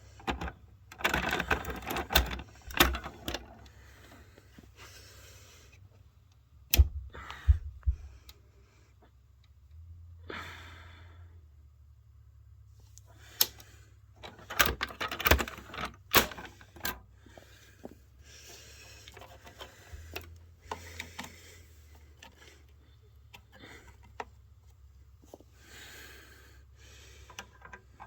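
Clicks, knocks and rattling from a Fire-Lite BG-12 fire alarm pull station being handled: its handle pulled and the station then reset. There are sharp snaps about seven seconds in and a cluster of them around fifteen seconds in.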